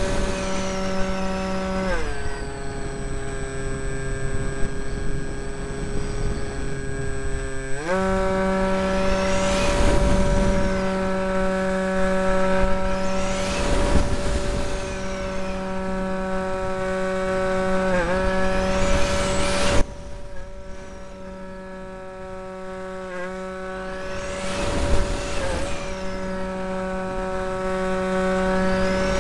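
Electric motor and propeller of a mini RC Cessna, heard from a camera on board: a steady pitched whine whose pitch drops about two seconds in as the throttle eases, climbs back about eight seconds in, and falls quieter around twenty seconds in. A rushing noise swells and fades every few seconds over it.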